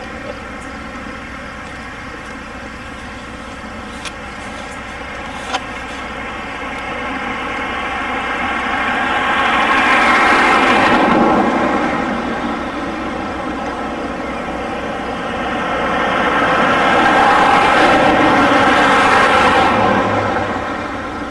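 Two vehicles passing by, each rising and fading over a few seconds, over a steady background hum, with a few faint clicks before the first one.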